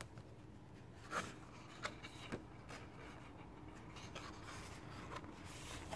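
Faint rustling of a spiral-bound paper desk calendar being handled, with a few soft ticks about a second and two seconds in.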